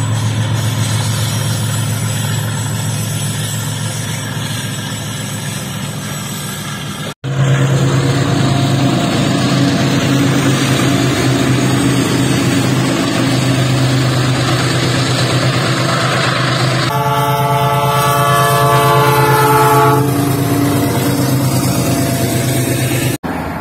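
Diesel-electric freight locomotive engines running as trains pass: first a steady drone from a train farther off, then, after a sudden cut, a louder drone from a locomotive passing close by. Its multi-note air horn sounds for about three seconds near the end, while the freight wagons roll past.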